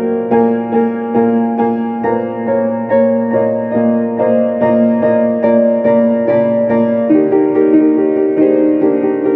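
Piano music: a steady run of repeated notes struck about two or three times a second over a held low note, moving to a new chord about seven seconds in.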